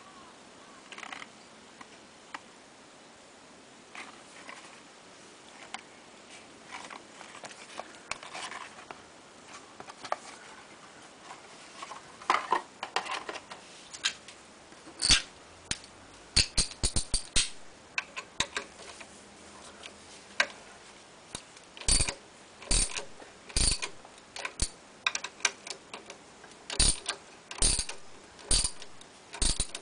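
Socket ratchet wrench on an engine's flywheel nut being worked, its pawl giving sharp clicks: scattered clusters about halfway through, then a steady run of loud clicks, a little under one a second, near the end. Before that, faint taps of tools and parts being handled.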